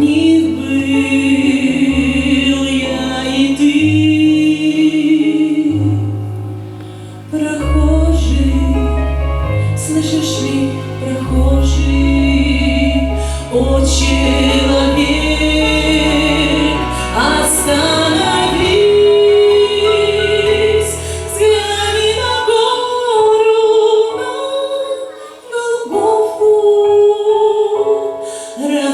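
Music: a slow Christian song, a female voice singing a sustained, wavering melody over a backing track with deep held bass notes.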